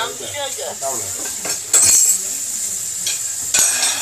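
Food sizzling in a frying pan while a utensil stirs and scrapes against the pan, with a few louder clanks and scrapes, the loudest about halfway through and another near the end.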